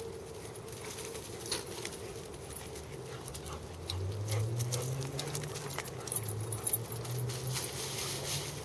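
Dogs at play: from about halfway through, a low growl comes in bouts, with jingling and light clicks throughout, likely collar tags and paws.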